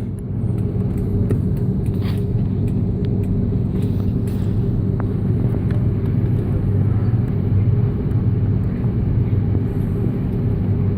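Steady low rumble inside the cabin of an Airbus A330-300 on the ground after landing, with a constant hum from the aircraft's engines and systems. A few faint clicks are heard about two and four seconds in.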